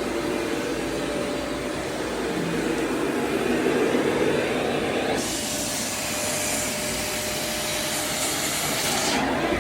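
AmazonBasics bagless vacuum cleaner (VCS35B15K-C) running steadily with a hose attachment. About five seconds in, a higher hiss of air comes in abruptly and drops out again near the end.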